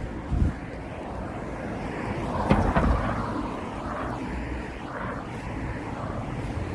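Evening street ambience: a steady traffic rumble with a vehicle passing, swelling about halfway through, and a few short knocks, the loudest about halfway through.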